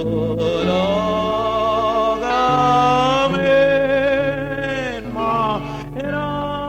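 A slow devotional song: a voice singing long held notes with a strong vibrato over a sustained instrumental accompaniment whose low notes change every second or so.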